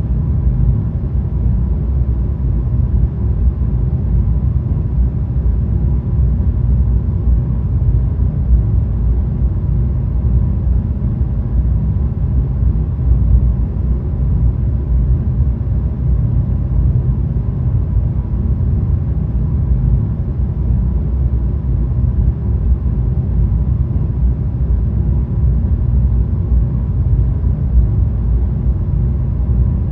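Hotel-room air conditioner running steadily, its fan giving a constant low rumbling whoosh of air with a faint steady hum.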